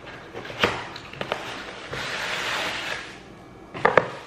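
A cardboard Priority Mail mailer being torn open: a few sharp snaps, then about a second of tearing and rustling. Tissue paper crackles as the contents come out, with the loudest snaps near the end.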